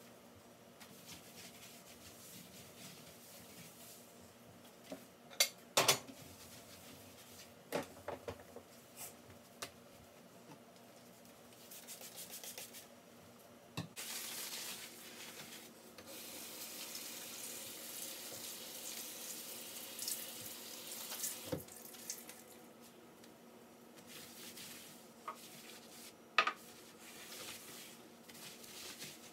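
Kitchen tap running into a sink in stretches, with dishes and pans clattering now and then; the loudest clatters come about six seconds in and near the end.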